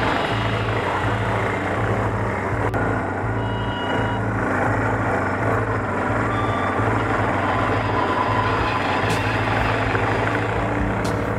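Honda NX4 Falcon motorcycle's single-cylinder engine running steadily on a gravel road. Tyres crunch on loose gravel and wind rushes over the microphone.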